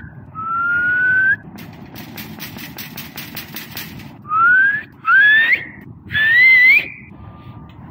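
A person whistling to get attention: four loud rising whistles, the first long, then three shorter ones close together in the second half. Between the first whistle and the rest, a quick run of sharp metallic rattles, about four a second, from the steel scissor gate across the dock door being shaken.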